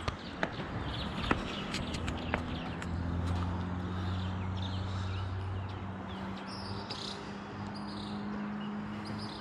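Birds chirping over a steady low hum that sets in about two seconds in, with a few sharp clicks near the start.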